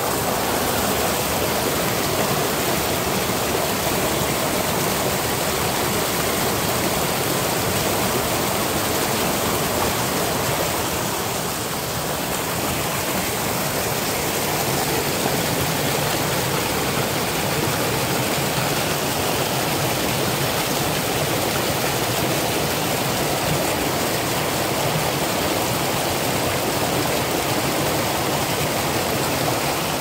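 Mountain stream water rushing and splashing steadily down over rocks in a strong current, pouring over mesh bags of peanuts wedged in the flow.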